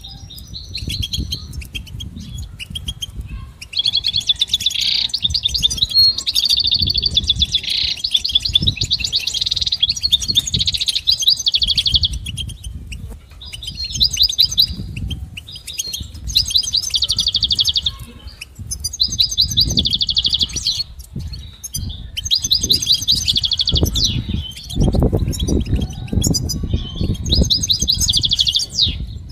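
European goldfinch singing: fast, twittering song phrases. A long run of song is followed by shorter phrases with brief pauses between them.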